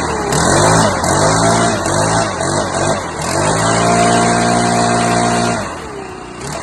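Stihl BR 600 backpack blower engine revved in three quick throttle blips, then held at high revs for about two seconds before dropping back near the end. It runs strong and evenly, freshly serviced with its carburetor tuned.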